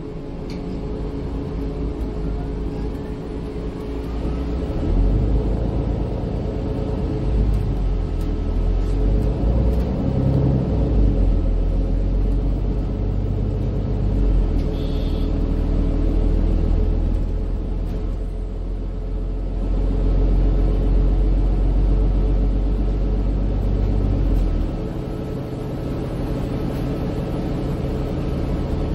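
Cabin sound of a MAN Lion's City 12C EfficientHybrid city bus under way: steady diesel engine and road rumble with a hum of engine tones. A short high electronic tone sounds about halfway through, and the low rumble drops about three-quarters of the way in as the bus eases off.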